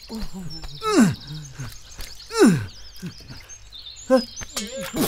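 A man groaning three times, each a long cry that falls steeply in pitch, over steady outdoor background with faint high chirps.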